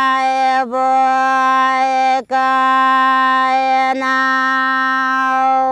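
A woman singing a Nepali thadi bhaka folk tune without accompaniment, holding one long note at a steady pitch, broken by a few short dips.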